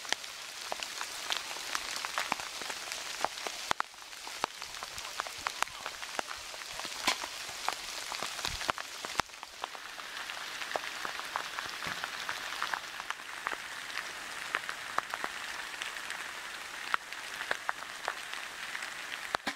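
Steady rain falling in woodland: an even hiss dotted with many sharp taps of drops, with a couple of dull thumps along the way.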